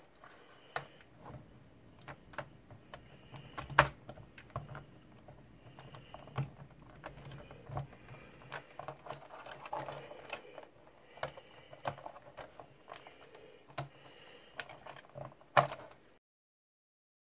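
A metal fork scraping and clicking against the plastic face and pointer needles of a Chevrolet Trailblazer instrument cluster as the needles are pried off their stepper-motor shafts: irregular small clicks and taps, with two sharper snaps, about four seconds in and near the end.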